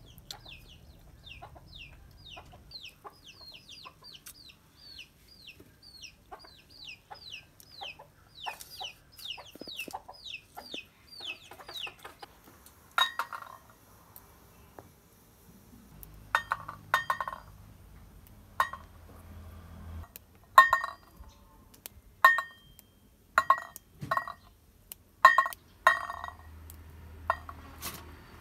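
A bird cheeping rapidly and repeatedly, two to three high, falling calls a second, for about the first twelve seconds. Then about a dozen sharp clinks of stainless steel bowls and pots being handled, each ringing briefly.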